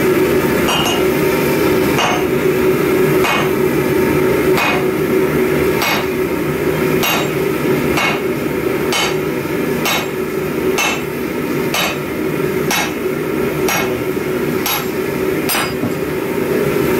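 Sledgehammer blows striking a handled tool held on a red-hot 60 mm thick steel plate. There are about fifteen sharp strikes, roughly one a second, coming slightly faster in the second half, over a steady hum.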